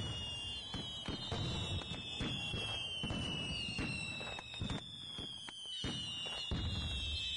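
Fireworks: repeated bangs and crackles over a low rumble, with high whistles slowly falling in pitch.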